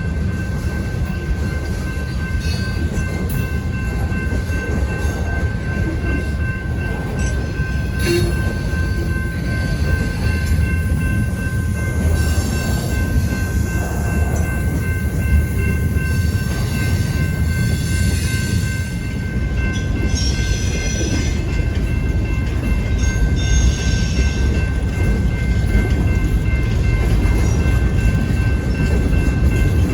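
Freight train cars rolling past on the rails: a steady heavy rumble with rapid wheel clatter in stretches and a faint steady high ring from the wheels, getting a little louder toward the end.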